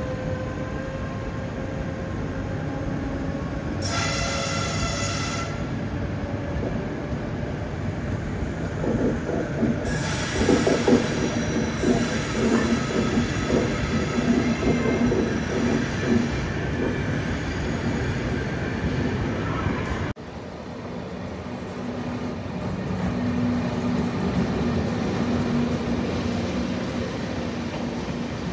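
Electric locomotive and passenger coaches moving out over station tracks: wheels squeal high-pitched on curves and points about four seconds in and again for a few seconds around ten seconds in, with rhythmic clicking of wheels over points and rail joints. After an abrupt cut, Nightjet sleeper coaches roll past with a steady rumble.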